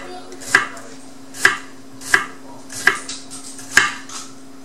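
A kitchen knife chopping cucumber on a wooden cutting board: five separate sharp chops, a little under a second apart.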